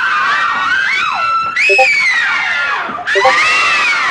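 Several high-pitched voices screaming and wailing at once, the cries sliding up and down in pitch, with brief breaks about a second and a half and three seconds in.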